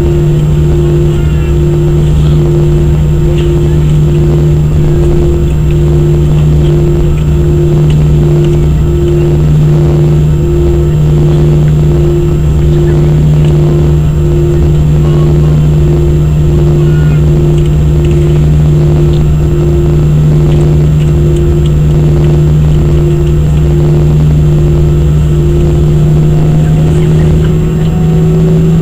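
Airbus A319's jet engines at taxi power, heard inside the cabin as a steady drone with a whine that pulses about once a second. Near the end the whine starts to rise in pitch.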